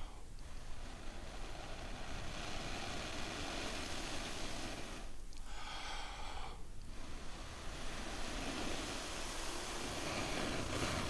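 A man blowing long, steady breaths into a smouldering tinder bundle to coax a char cloth ember into flame, with two short pauses for air about five and seven seconds in.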